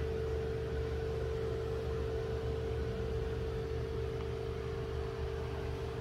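A steady mechanical hum with one constant mid-pitched tone over a low drone.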